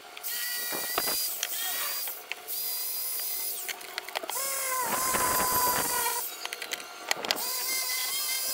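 Electric drill with a brass wire wheel brush scrubbing rust off the base of a frying pan: a high motor whine with the bristles scraping, in several short runs that cut off and restart abruptly, the whine lower in pitch in the middle.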